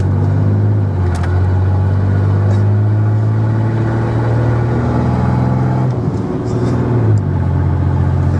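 Chevy pickup's engine running under load as the truck is driven through the gears of its swapped-in six-speed manual, heard from inside the cab. The engine note holds steady, then drops away about six seconds in during a gear change and picks up again about a second later.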